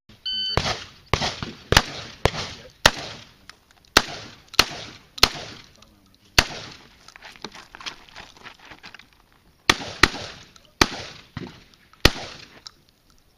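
A shot timer beeps once, then a semi-automatic shotgun fires about a dozen shots, at first roughly two a second, with a pause of about three seconds before the last few.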